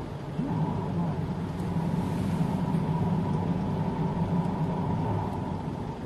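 Steady low engine drone of road traffic heard from inside a car, with a faint higher tone above it. It sets in about half a second in and eases off near the end.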